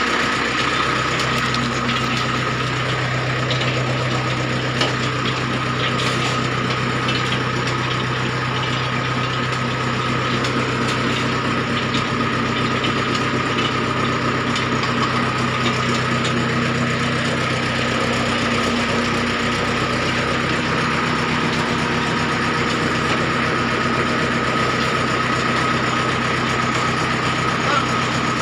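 Belt-driven wire-cut brick machine running steadily, its clay mill churning and its V-belts and pulleys turning, with a steady high whine over the machinery. A low hum fades out about two-thirds of the way through.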